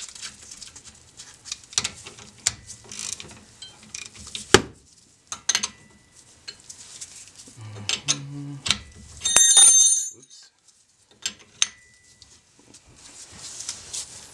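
Hand ratchet clicking as a 14 mm socket tightens a brake caliper slide-pin bolt, with a sharp metal knock about four and a half seconds in. Steel hand tools clink and clatter against each other and the caliper, loudest and ringing about nine and a half seconds in.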